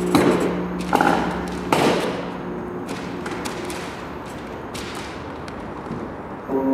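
A folding chair being handled and knocked: three sharp thuds in the first two seconds, then quieter shuffling. A steady electronic drone stops at the start and comes back in loudly near the end.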